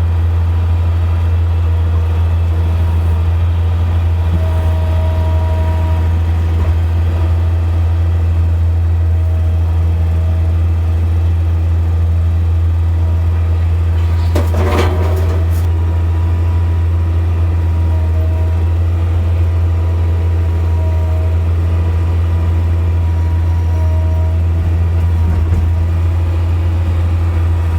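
Skid steer engine running steadily under load, with a brief clatter about halfway through.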